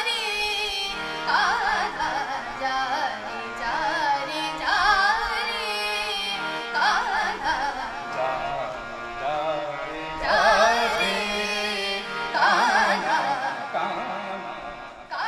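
A woman singing Indian classical-style vocal phrases, with wavering, ornamented held notes over instrumental accompaniment. The music fades out near the end.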